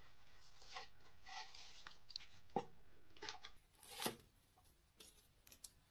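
Faint rubbing and scraping with a few sharp ticks, the loudest about four seconds in, from handling a hot, fire-roasted sweet potato.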